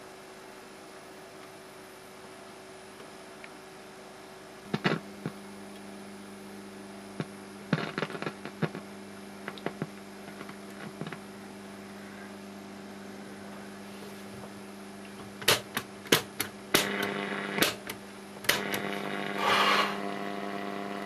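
A Graetz Komtess 811 valve radio, switched on, puts out a steady mains hum. Scattered sharp clicks and crackles come through while the chassis is handled, most of them in the second half, with a short rush of noise near the end.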